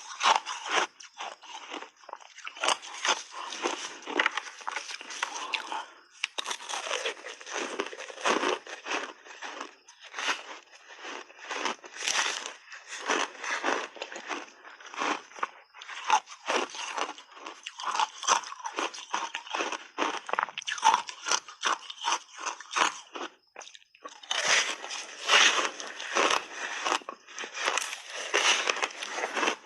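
Hard white block ice being bitten and chewed, many irregular crunches in quick succession with a short pause a little before the end.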